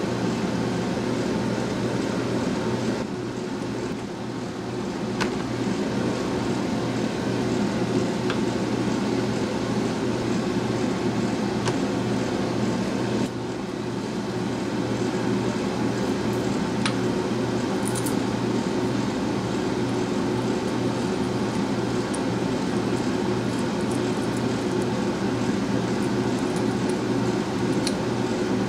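Steady machine hum of a running motor, unchanging in pitch, with a few faint clicks as small metal pen parts are handled.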